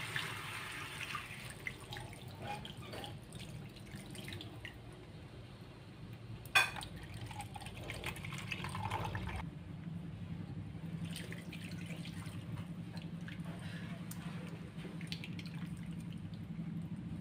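Water poured from a plastic jug into a wok of raw chicken pieces, tailing off in the first second, then liquid splashing and dripping with scattered small knocks. One sharp knock about six and a half seconds in, with a low steady hum underneath from about halfway. A wooden spatula stirs the chicken in the liquid near the end.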